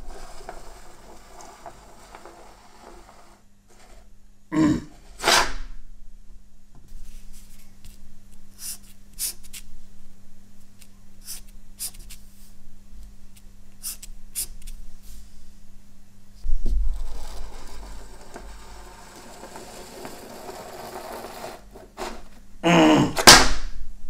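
Felt-tip marker strokes on a sticky note lying on a steel bench, a run of short sharp strokes as words are crossed out. There are louder quick rustling scrapes from handling the paper about five seconds in and again near the end. A steady low electrical hum runs underneath.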